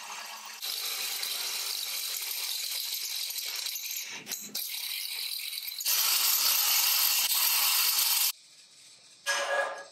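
Milwaukee cordless drill driving a step drill bit through steel angle iron, a steady grinding whine of the bit cutting steel, with a brief break partway and louder in the last stretch before it stops abruptly. Near the end, a short metallic clank that rings briefly.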